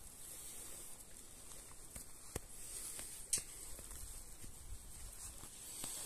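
Hands crumbling moist soil and tearing apart a clump of matted grass roots: soft rustling and crumbling, with a few faint clicks, the sharpest a little past three seconds in.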